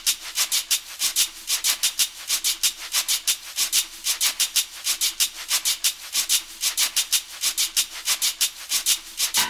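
A hand shaker playing a quick, steady rhythm alone, about five shakes a second, as the opening of a song.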